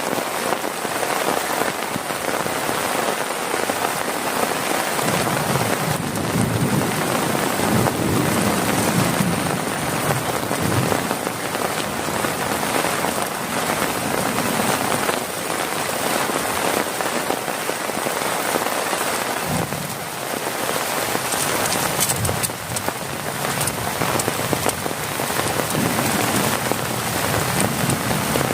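Heavy rain falling steadily on a plastic tarp over a tent, with low rumbles swelling and fading now and then.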